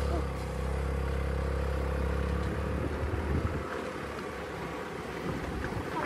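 A small Honda motor scooter engine running just after being started: a steady low hum that drops away about three and a half seconds in, leaving a rough rushing noise.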